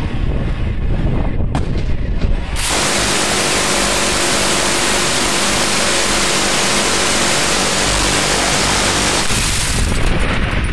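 Dillon quad M134 minigun, four battery-powered 7.62 mm six-barrel guns, firing one continuous burst about two and a half seconds in that lasts about six and a half seconds. The rate of fire is so high that the shots merge into one steady, even noise. It is preceded by a low rumble with a few sharp cracks.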